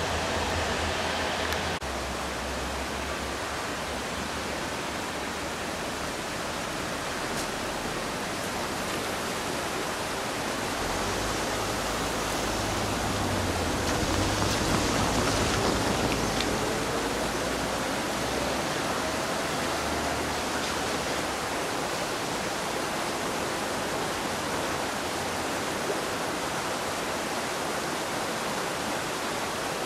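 Steady hissing background noise with an uneven low rumble, and a faint tone rising in pitch about halfway through.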